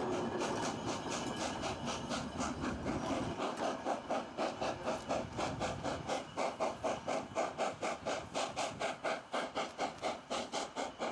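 Goods train of open wagons and a brake van rolling past slowly, with a low rumble that dies away after about three seconds. Behind it, the steam locomotive working uphill beats out its exhaust at about four chuffs a second.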